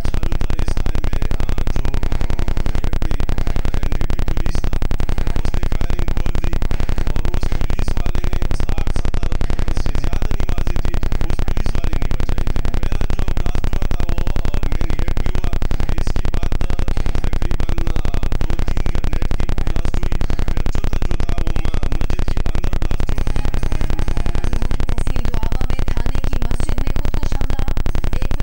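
A loud, steady low hum with an even buzz across all pitches, unchanging throughout, covering any faint sound beneath it.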